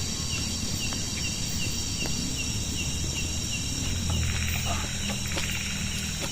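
Insects chirping: a steady high-pitched chorus with a short chirp repeating about three times a second. Scattered light clicks, and a low hum underneath that grows louder about four seconds in.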